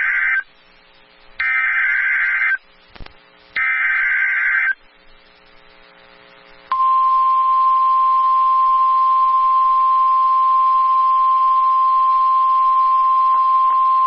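Emergency Alert System SAME header: the end of one short burst of warbling data tones, then two more, each about a second long and about a second apart. After a pause, the single steady high weather-radio warning alarm tone starts about halfway through and holds, announcing a tornado warning.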